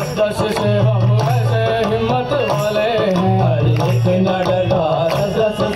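Qawwali ensemble playing: a harmonium melody over a hand-drum rhythm, with the group's steady hand clapping.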